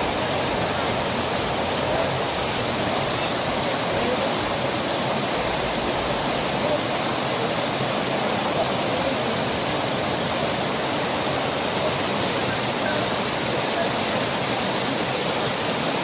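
Mountain waterfall rushing steadily, falling over a rock ledge and splashing down a rocky cascade.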